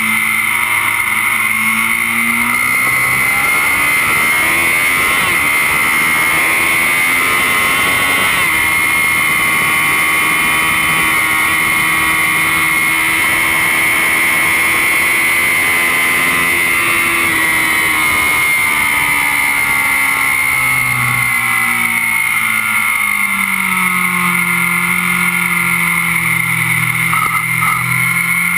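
Kawasaki Z750's inline-four engine at track speed, heard close up from the bike's crash bung with heavy wind noise. The revs climb over the first few seconds, hold high for a long stretch, then drop about two-thirds of the way through and run lower near the end.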